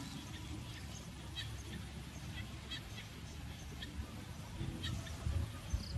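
Outdoor field ambience: short, high chirps scattered irregularly over a low rumble, with a few louder low bumps near the end.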